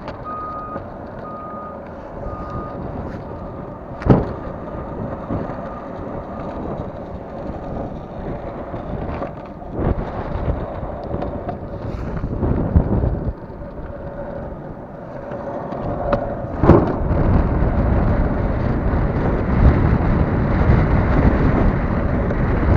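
Longboard wheels rolling over asphalt with wind rushing on the microphone, growing louder in the last few seconds, broken by a few sharp knocks, the loudest about four seconds in and near the seventeen-second mark. A vehicle's reversing beeper sounds about twice a second at the start and stops after about three seconds.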